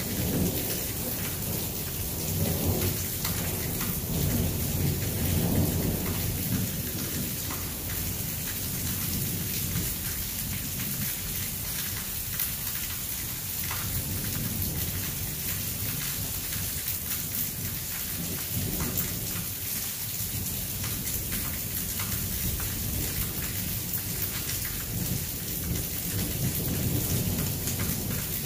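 Steady rain falling, an even hiss, with low thunder rumbling that swells and fades several times. The rumbles are loudest in the first few seconds and again near the end.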